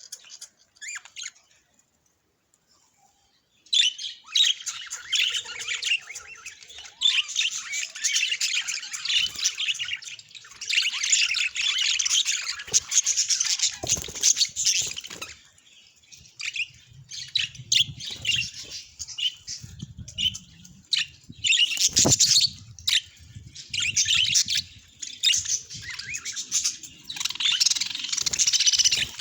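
Budgerigars chattering, with quick high chirps and warbles packed into long spells broken by short pauses. The chatter begins about four seconds in.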